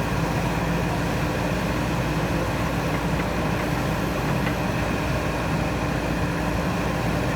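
JCB 3DX backhoe loader's diesel engine running steadily at a constant speed, with no revving.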